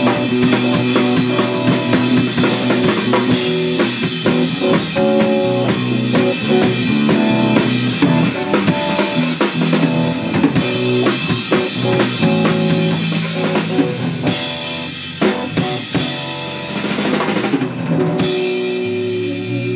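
Music with a full drum kit (bass drum, snare and rimshots) over sustained pitched instruments, the drums dropping out near the end and leaving guitar.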